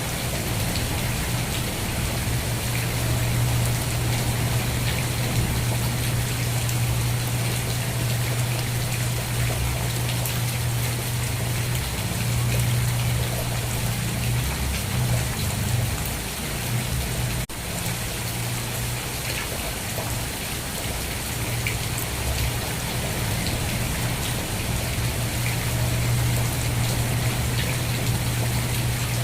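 Steady rain falling, with many individual drops ticking over a dense hiss, and a steady low rumble underneath. The sound drops out for an instant at about the middle.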